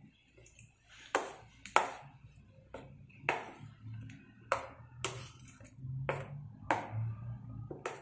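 Metal spoon clinking against a stainless steel bowl while stirring a thick curd dish: about nine sharp, ringing clinks at uneven intervals.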